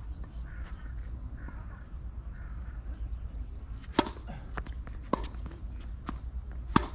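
Tennis ball hit by rackets during a rally: sharp strikes about four seconds in, about five seconds in, and near the end, with softer clicks between them, over a low steady rumble.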